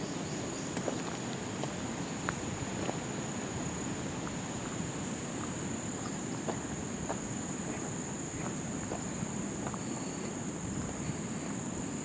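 A steady high-pitched insect chorus, with scattered crunching footsteps on a gravel track.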